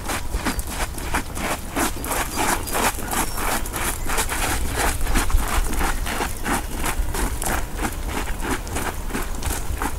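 Two pairs of boots walking on a gravel dirt road: a steady rhythm of crunching footsteps, several a second, over a low rumble.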